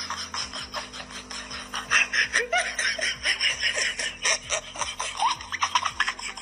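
Human laughter with quick, repeated giggles and chuckles.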